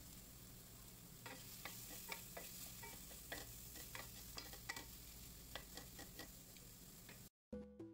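A wooden spatula stirring okra frying in a metal pan: irregular scrapes and taps against the pan start about a second in, over a faint steady sizzle of oil.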